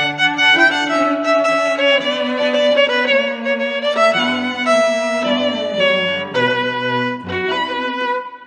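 Background music led by a violin, with notes that change every second or so over lower string parts.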